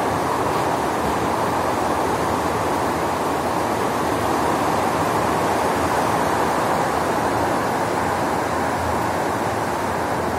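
Heavy rain falling steadily: a dense, even hiss.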